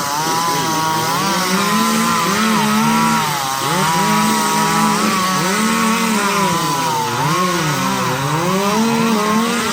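Echo CS-400 two-stroke chainsaw running at high revs, its pitch repeatedly sagging and climbing back every second or two as the chain bites into wood under load.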